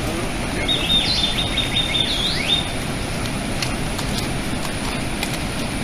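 Steady rush of heavy falling water, with a bird giving a quick run of high chirps from about one to two and a half seconds in.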